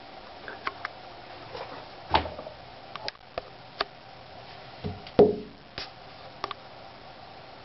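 Scattered light taps and clicks close to the microphone, with two louder soft thumps about two and five seconds in, the second the loudest, over a faint steady hum.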